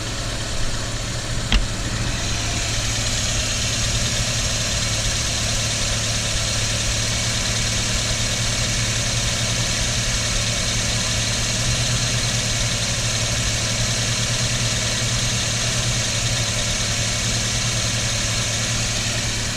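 Toyota Corolla engine idling steadily with the radiator cap off, run to purge air pockets from the freshly refilled cooling system. There is a single click about a second and a half in, and a steady hiss joins about two seconds in.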